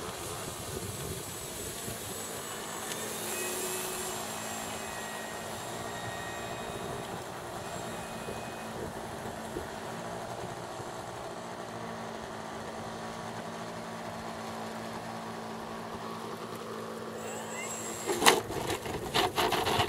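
Electric RC aerobatic plane in flight: its brushless outrunner motor and 14x6 propeller running steadily, trailing ribbon streamers that flutter in the airflow. Near the end, several sharp knocks and rattles as it touches down and rolls on the dirt strip.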